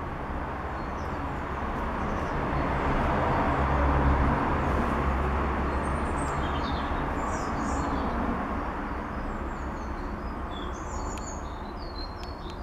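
A steady rushing rumble swells to its loudest about four seconds in, then slowly eases off. Small birds chirp high above it in the second half.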